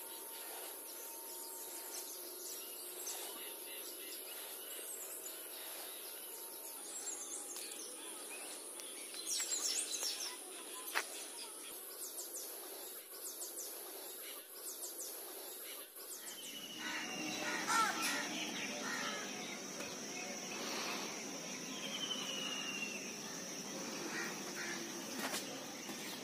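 Outdoor park ambience with birds chirping and calling at intervals, over a steady high-pitched whine. The background shifts and grows fuller about two-thirds of the way through.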